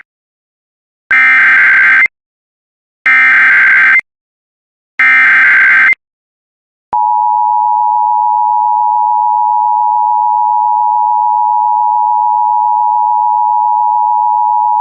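Emergency Alert System header. Three one-second bursts of SAME digital data tones, then, after a short gap, the steady two-tone EAS attention signal (853 and 960 Hz) for about eight seconds. It cuts off sharply near the end and marks the start of a new alert, here a required monthly test.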